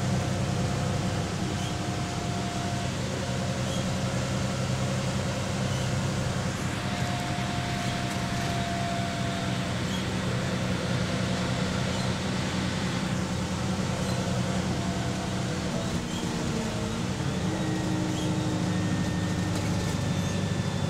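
A VDL DB250 double-decker bus with a Voith automatic gearbox, heard from inside the passenger saloon while under way: a steady engine and drivetrain drone with thin whining tones that shift in pitch. About sixteen seconds in the sound dips briefly and the tones change pitch.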